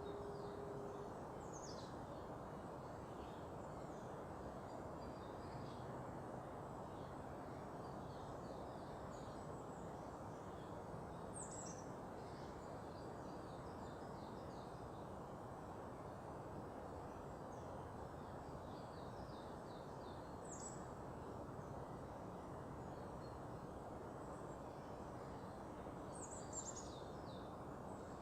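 Small birds calling faintly over a steady low background rumble: a short high note sliding steeply down, four times about nine seconds apart, with softer quick twittering between.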